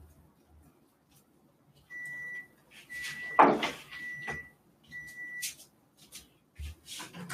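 An electronic appliance beeps four times, each a steady high tone about half a second long, roughly one a second. A loud knock and clatter, like a cupboard door or a pan, comes in the middle of the beeps, with lighter clicks and knocks after.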